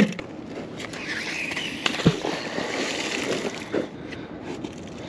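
Rustling of clothing and rope with scattered crackles, as a magnet-fishing magnet is thrown out on its rope, with a single low thump about two seconds in.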